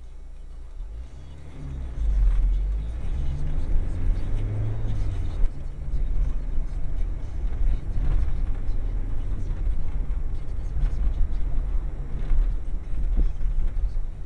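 A car's engine and road noise heard from inside the cabin while driving. About two seconds in, the engine picks up as the car accelerates; it then runs on at a steady low rumble.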